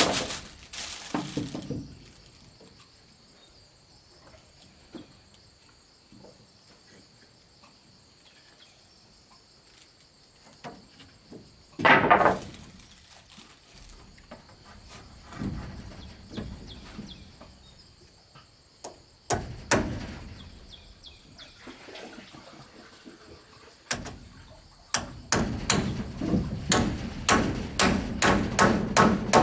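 Wood being struck by hand tools: a few heavy single blows, then a quick run of chopping or hammering blows, about three a second, near the end. A steady high drone of insects runs underneath.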